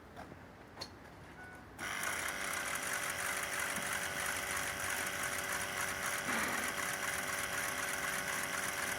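Ford 6.0 Power Stroke V8 diesel engine comes on suddenly about two seconds in and runs steadily with a fast, even ticking puff, the sound of an exhaust leak.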